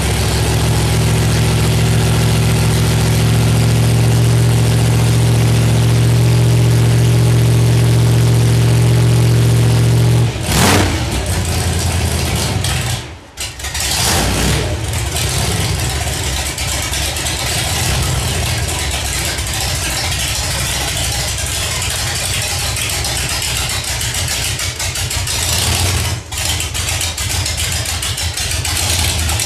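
Hot rod's big-block Chevy V8 with open headers running at a steady fast idle while it warms up from a cold start. About ten seconds in it is blipped, the sound drops out briefly and surges back, and then it settles into a lower, less even idle with one more short blip near the end.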